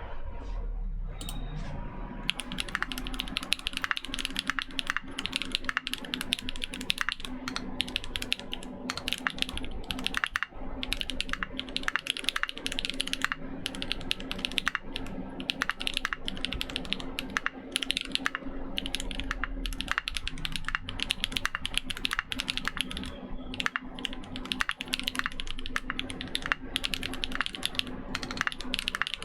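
Fast, continuous typing on a Keychron Q2 gasket-mount mechanical keyboard with lubed tactile switches (Kailh copper stems in nylon housings), a stainless steel plate and PBT keycaps, starting about two seconds in. The keystrokes are moderately loud on both down- and upstroke, with a slight hollowness that the owner puts down to the gasket-mount case.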